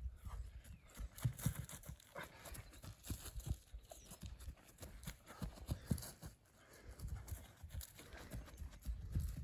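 Running footsteps of trainers on a grass lawn: quick, irregular dull thuds as a person sprints, stops and turns.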